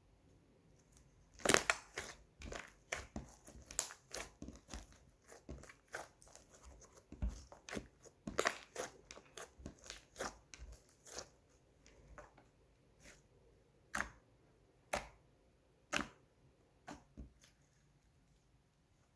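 White slime being played with, giving irregular sharp clicks and pops, dense at first and then spaced about a second apart in the second half.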